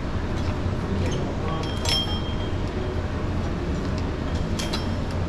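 Gym ambience: a steady low hum with sharp metal clinks of weights, one about two seconds in and a pair near the end.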